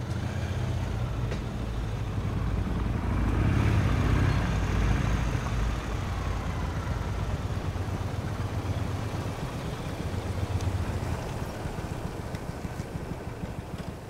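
Motorcycle engines, a Harley-Davidson V-twin among them, running as the bikes ride past. The sound swells to its loudest about four seconds in, then settles to a steadier, quieter running.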